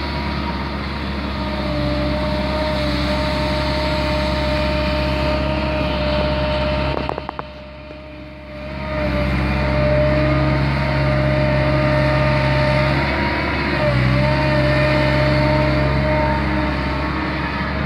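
CAT M315D wheeled excavator's diesel engine working, with a steady hydraulic whine over it as the boom and bucket dig sand. About seven seconds in the sound drops away for a couple of seconds, then comes back louder.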